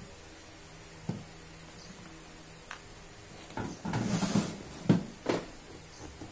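Parts of a National 12V cordless drill-driver handled and fitted back together by hand: a click about a second in, a burst of rustling and scraping around four seconds in, then two sharp knocks of hard parts against each other.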